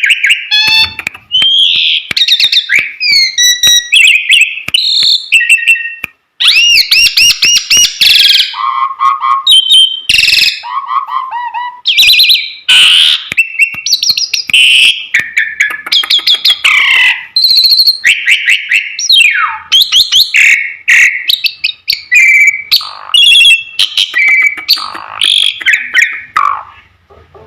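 Pied starling (jalak suren) singing loudly and without pause, a rapid medley of clear whistles, rasping notes and sharp clicks that changes every moment, with one brief gap about six seconds in. It is an agitated, challenging song of the kind used to provoke other male starlings.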